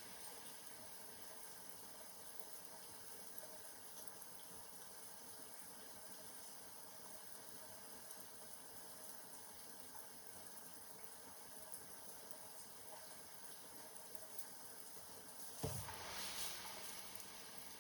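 Faint, steady sound of water, with a sudden knock near the end followed by a louder rush of about a second and a half.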